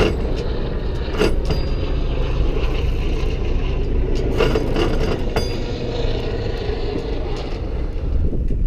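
Steady low rumble of wind and water aboard a small sailboat under sail, with a few sharp clicks and knocks from lines and gear being handled during a tack.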